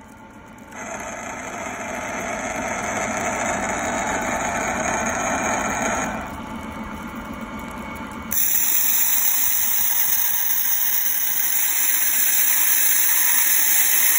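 Tines of a metal fork held against the close-set grooves of a stone workpiece spinning on a stone lathe, giving a loud, steady rasping buzz. It starts about a second in, eases off around six seconds, and comes back louder and hissier at about eight seconds.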